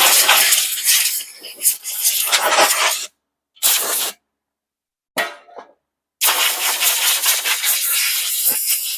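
Spray hissing in four bursts as small engine parts are blown or sprayed clean: a long burst of about three seconds at the start, two short ones in the middle, and another long one near the end.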